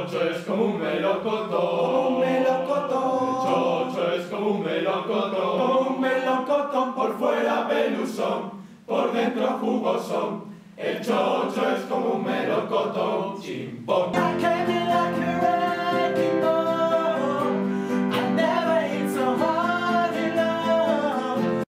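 A choir singing together. About two-thirds of the way through it gives way to a single man singing into a microphone.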